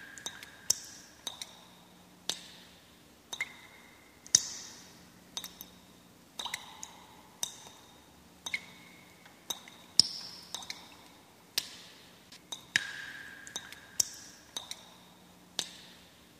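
A slow series of sharp, drip-like plinks, each ringing briefly at its own pitch, coming roughly once a second over a faint low hum.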